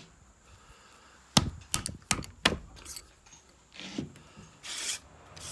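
A wooden-handled ball starter is knocked four times in quick succession to drive a patched lead ball into the muzzle of a .50 calibre flintlock rifle. Two short scraping sounds follow.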